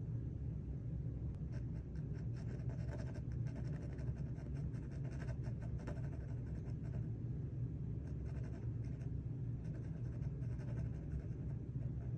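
Mechanical pencil's graphite tip scratching across a drawing panel in quick, short shading strokes, busiest in the first half, over a steady low hum.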